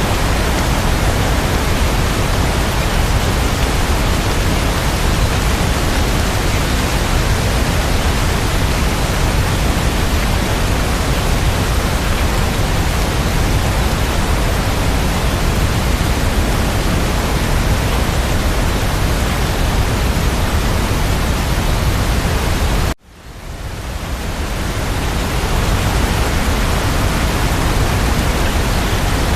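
Steady, dense rain noise. It cuts out abruptly about 23 seconds in and fades back up over a couple of seconds.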